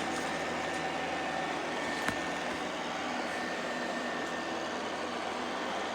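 Robot vacuum cleaner running steadily: a constant rushing noise with a faint high whine, and a single click about two seconds in.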